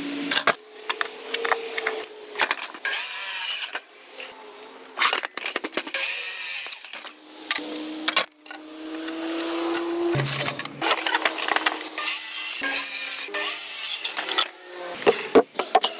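Sliding compound miter saw running, its motor holding a steady whine, with about three cuts through wooden boards that each fill the sound with a rasping hiss. Sharp knocks and clatter of boards being handled and set on the saw come between the cuts.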